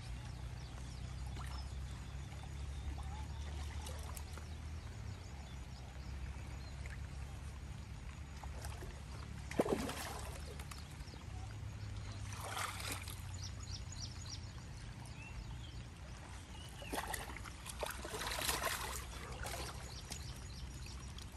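Water splashing from a hooked rohu being pulled in and landed: one sharp splash a little before halfway, another a few seconds later, and a longer bout of splashing near the end, over a steady low rumble.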